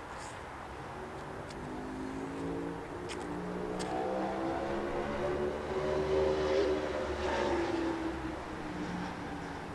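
A motor vehicle's engine goes by, its pitch rising and then falling, loudest about six to seven seconds in, over a steady low rumble. A few faint ticks come in the first four seconds.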